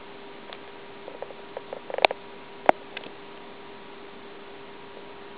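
A run of light clicks, then two sharp knocks about two and two and a half seconds in, over a steady faint hum.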